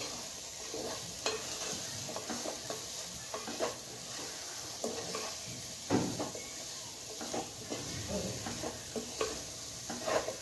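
Wooden spatula stirring and scraping sweet potato pieces in a nonstick pot, with scattered light knocks against the pot over a steady low sizzle of the pieces frying in ghee. The loudest knock comes about six seconds in.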